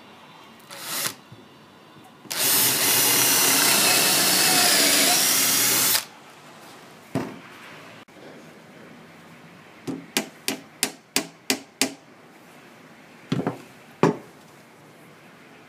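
Cordless drill boring into a fir tabletop: a short burst, then one steady run of about three and a half seconds. Afterwards a run of about seven quick sharp knocks and a few single knocks.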